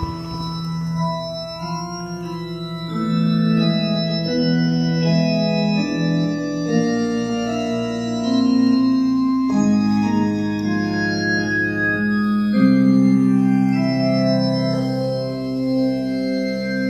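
Electronic organ playing slow, sustained chords that change every second or two, with no drums.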